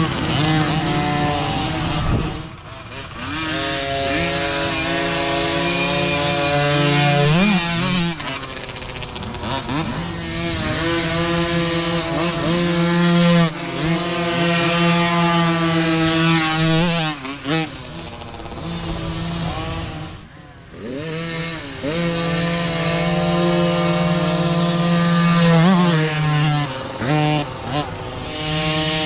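Small engines of youth micro dirt bikes running hard, with a high buzzing note that climbs and falls as the throttle opens and closes, and short dips several times as the riders back off.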